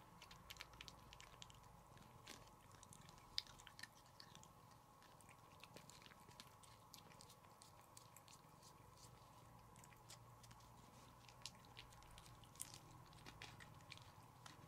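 Black cat licking a lickable cat treat from a squeeze tube, making faint, quick, irregular wet tongue clicks and smacks, over a steady faint hum.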